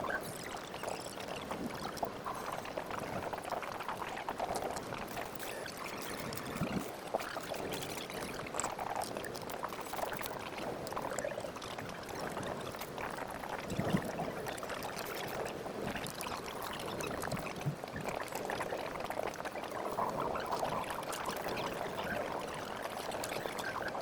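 Continuous fast typing on a custom mechanical keyboard with lubed Glorious Panda tactile switches, a brass plate and GMK keycaps: a dense, unbroken stream of keystroke clacks.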